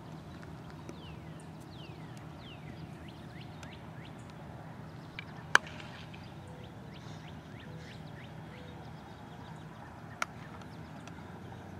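A baseball bat cracks against a ball about five and a half seconds in, the loudest sound here, and a fainter crack comes near ten seconds. Birds chirp with short falling notes over a steady low hum.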